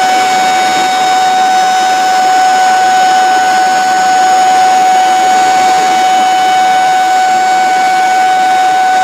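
Water from a concrete dam's spillway gates, a steady loud rushing noise. A steady high-pitched tone with overtones sounds over it without a break.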